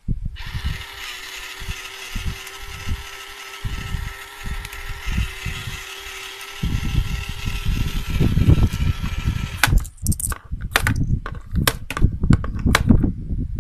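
Small electric motor of a toy electronic money-box safe running steadily as its front slot draws in a banknote, with low thumps under it. It stops near ten seconds in, followed by a series of sharp clicks and taps as a coin is pushed into the slot on top.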